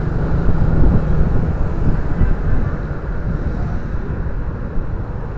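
Motorcycle engine running as the bike rolls slowly along, with wind rumbling on the handlebar-mounted microphone; the rumble eases a little past the halfway point.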